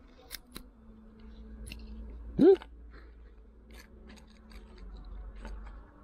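Small sharp clicks and snaps of the broken GoPro HERO7 Black's plastic and metal parts being pried and pulled apart by hand. About two and a half seconds in comes one short rising squeak, the loudest sound.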